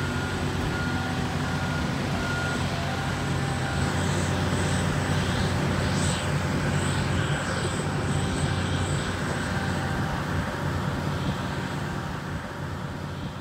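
Steady drone of machinery on an airport apron: aircraft and ground service vehicles such as a diesel ground power unit running continuously, with a constant low hum.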